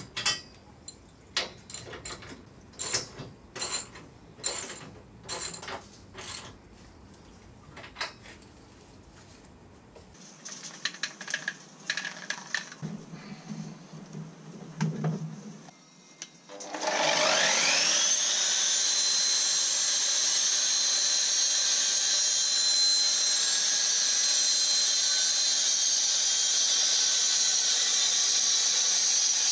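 A run of sharp metal clicks and knocks as scaffold fittings are worked loose. Then, about 17 seconds in, a concrete cut-off saw spins up with a rising whine and runs steadily at full speed, its disc cutting a slot into a pebbledash-rendered wall.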